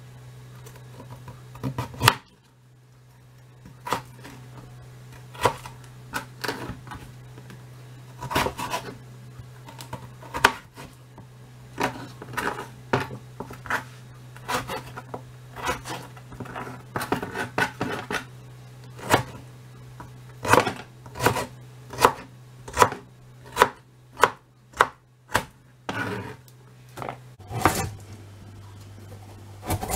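Chef's knife slicing carrots into sticks on a cutting board: a string of sharp knocks as the blade meets the board, irregular, with a run of quick strokes near the end, over a low steady hum.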